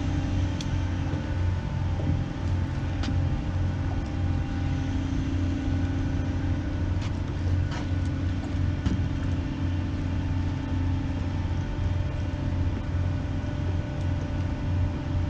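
Steady low rumble of a towboat's diesel engine idling, with a few faint clicks over it.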